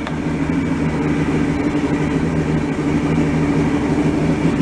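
Oil-injected two-stroke outboard engine idling steadily, its lower unit in a water tank.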